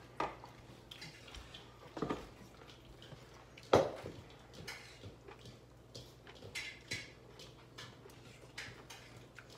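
Bowls and utensils knocking and clinking on a table during a meal. There is one sharp, loud knock a little under four seconds in, and scattered lighter clicks around it.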